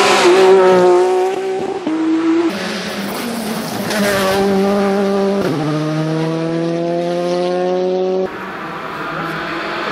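Rally car engines at high revs on a tarmac stage: a Porsche 911 rally car running past close at the start, then another rally car revving up through the gears, with the engine note stepping abruptly several times and climbing steadily for a few seconds in the middle.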